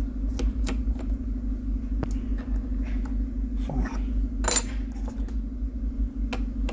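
Small metallic clicks and taps of tiny phone screws and a precision screwdriver being handled on the work surface, with one longer scraping rasp about halfway through, over a steady low hum.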